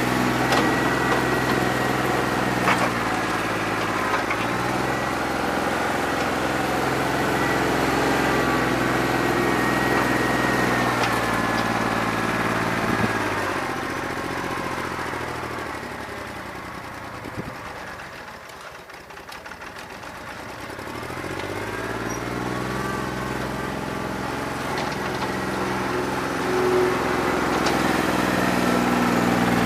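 New Holland 1320 compact tractor's three-cylinder diesel engine running at work, with a bad injector leaving it running on about two and a half cylinders. About halfway through, the engine sound fades and drops in pitch, then rises back up to full strength.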